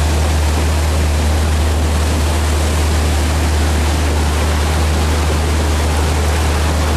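Swollen, fast-flowing floodwater rushing steadily, with a constant low rumble underneath.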